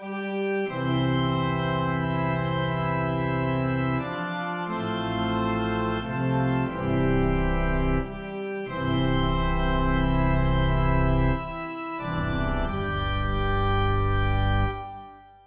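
Organ music made in GarageBand: slow, sustained hymn-like chords over deep bass notes, the chord changing every few seconds, fading out near the end.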